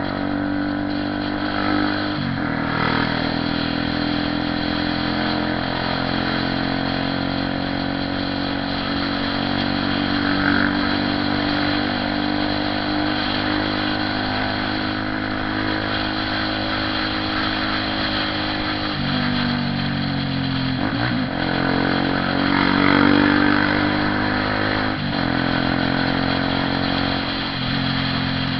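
Honda CB 300R motorcycle's single-cylinder engine running under way with a steady note. The pitch drops and picks up again a few times: about two seconds in, around twenty seconds in, and near the end.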